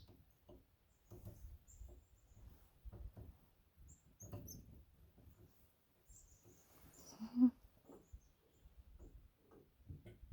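Faint, short high chirps and calls from small birds, with a quick run of falling chirps around six to seven seconds in. Soft low taps run underneath, and a short low hum comes about seven and a half seconds in.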